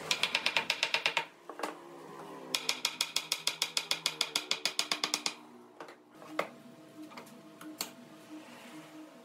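Rapid, even mechanical clicking, about nine to ten clicks a second, in two runs: one of about a second, then a longer one of nearly three seconds, followed by a few single clicks.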